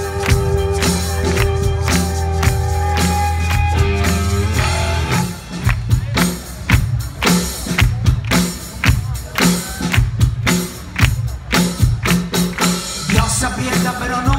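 Rock band playing live through a PA, in an instrumental passage between sung lines. For about the first five seconds a held chord rings over a sustained bass note. Then the drums come in with a steady, driving beat under the guitar and keys.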